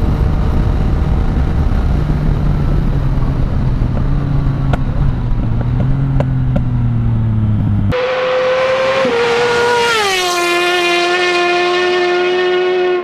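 Yamaha Tracer 900's three-cylinder engine running steadily through an Akrapovic exhaust for about eight seconds. Then it cuts off abruptly and a held musical tone takes over, stepping down in pitch twice.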